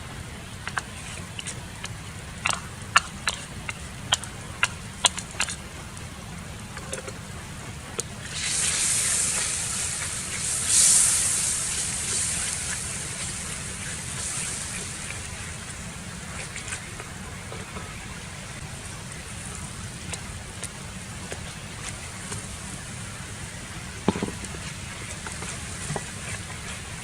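A few sharp clicks and taps, then food sizzling in hot oil: the hiss starts suddenly, swells for a few seconds and slowly dies down, over a steady low rumble.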